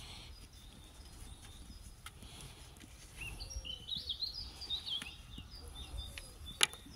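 A songbird singing a warbling phrase of quick rising and falling notes, starting about three seconds in, with a few short high chirps elsewhere. A single sharp click near the end is the loudest sound.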